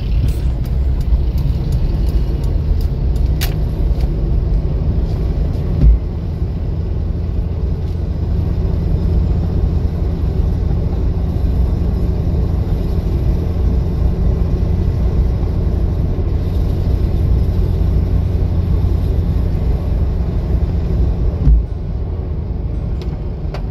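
Steady low rumble of a car's engine and tyres heard from inside the cabin while driving on wet streets, with two louder thumps, one about six seconds in and one near the end.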